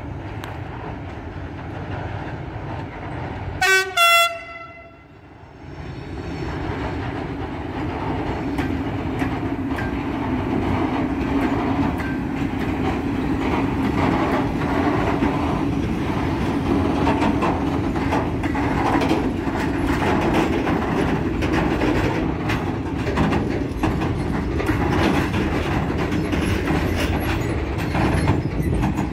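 Two short horn blasts from an approaching DB Cargo Romania class 480 electric locomotive, a driver's greeting, about four seconds in. Then the locomotive and its covered freight wagons pass close by, wheels rumbling and clicking over the rail joints.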